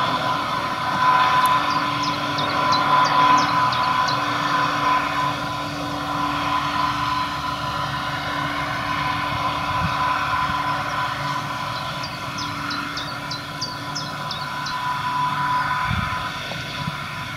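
Claas Jaguar 950 self-propelled forage harvester chopping grass, running as a steady drone with a steady high whine, with the tractor hauling the trailer beside it. A bird sings twice over it, each time a quick series of short falling notes: once near the start and again about twelve seconds in.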